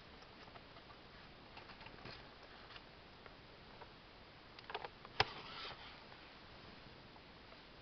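Newborn Havana Brown kittens nursing: faint, scattered soft clicks and smacks of suckling. About five seconds in, a quick cluster of clicks leads into one sharp click, followed by a brief rustle.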